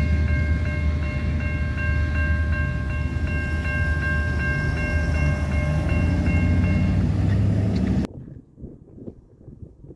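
Grade-crossing warning bell ringing in rapid, even strokes while the gates rise, over a low engine rumble; the bell stops about seven seconds in. The sound then cuts off abruptly to faint wind noise.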